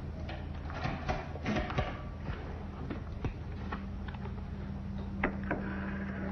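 Scattered light clicks and knocks of small objects being handled, with a sharper click about five seconds in, over a steady low hum.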